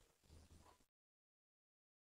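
Near silence: a faint room hiss that cuts to total silence about a second in.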